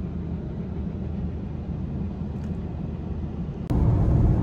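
Car driving, heard from inside the cabin as a steady low road rumble. About three and a half seconds in it jumps suddenly louder and fuller: the car on a rain-wet highway.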